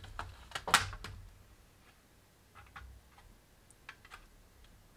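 Light clicks and taps from hands working the lid of a metal watercolour paint tin, trying to detach it. A cluster of clicks in the first second, the loudest just under a second in, then a few faint ticks.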